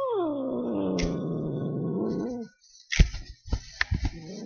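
Cat giving one long, drawn-out meow that slides down in pitch, then a few sharp knocks, and a second, lower cat call starting near the end.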